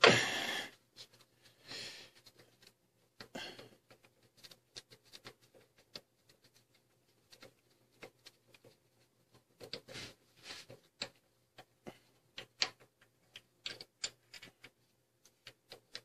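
Irregular light metallic clicks and ticks as the loosened crankshaft pulley bolt is turned out of its threads by hand. The clicks come more often in the second half, over a faint steady hum.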